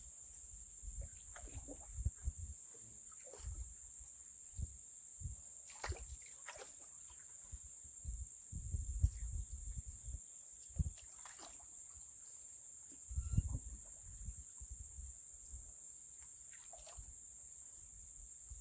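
Steady high-pitched chorus of crickets and other insects, with scattered low thumps and short knocks from handling in a canoe, the loudest about halfway through.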